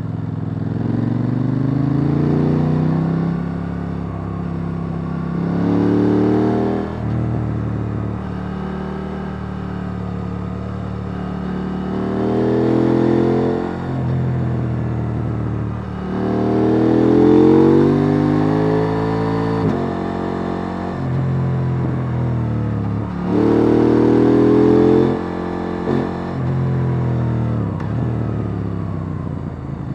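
KTM 890 Duke R's parallel-twin engine on its stock exhaust, heard on board, pulling hard through the gears about five times. The pitch rises with each pull and drops in steps between them, and the loudest pull comes past the middle.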